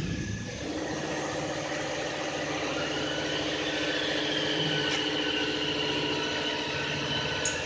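PVC film vacuum membrane press machine running: a steady mechanical hum with a few steady tones, joined about three seconds in by a faint high whine.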